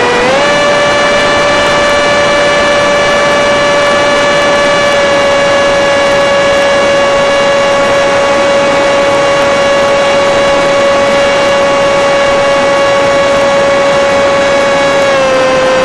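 Electric motor and pusher propeller of an FPV Skyfun flying wing running at a steady high whine over a rushing hiss. The pitch steps up just after the start and drops back a little near the end.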